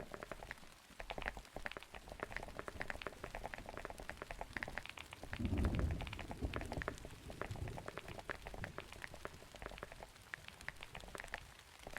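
Dense, irregular clicking and clattering of small plastic keyboard keycaps being handled. A louder dull thump comes a little past the middle.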